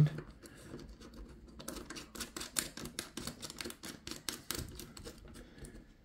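A rapid, irregular run of small light metallic clicks and ticks as a crimped ring terminal and a small nut are fitted by hand onto a stud of a negative bus bar. The clicking thins out near the end.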